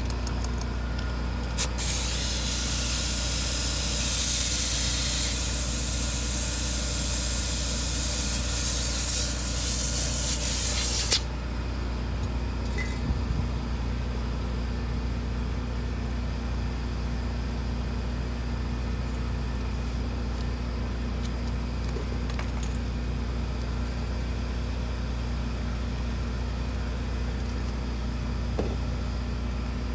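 A spray nozzle hissing in one long steady spray of about nine seconds onto a wheel being refinished, cutting off suddenly, over a low steady hum.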